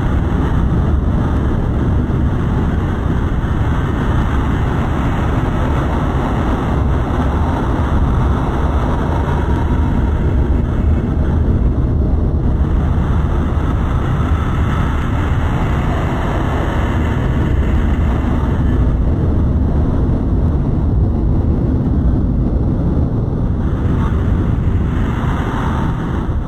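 JR Shikoku 8000 series electric express train passing close by: a loud, steady, deep rumble that holds level throughout.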